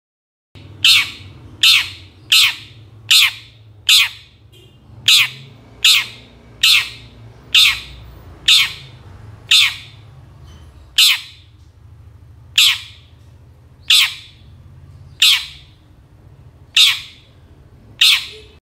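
Long-tailed shrike (cendet) giving a series of about seventeen harsh, scratchy calls, each a short rasp falling in pitch. They come about one every 0.8 s at first, then spread out to one every second or second and a half.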